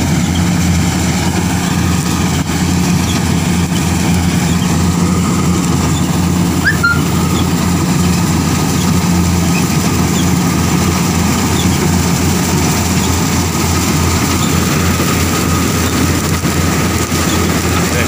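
Combine harvester running steadily as it cuts standing wheat: a loud, even engine and machinery drone with a faint steady higher tone over it.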